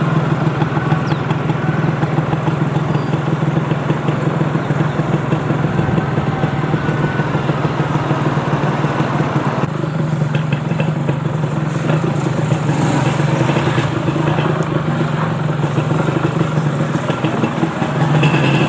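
Yamaha 125Z motorcycle's two-stroke single-cylinder engine running at a steady pitch while riding.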